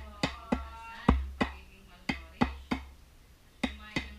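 A bolo knife chopping and shaving a piece of jackfruit wood held against a wooden block: sharp wooden chops in quick groups of two or three, about ten in all, with short pauses between the groups.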